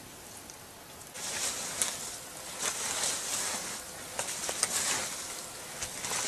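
Dry leaf litter and twigs rustling and crackling with many small snaps, as a branch is handled and pushed over the forest floor; the sound starts about a second in.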